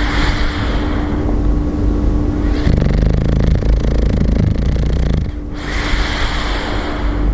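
A bulldog snoring in its sleep: a hissing breath, then a rattling snore that lasts about two and a half seconds, then another hissing breath near the end.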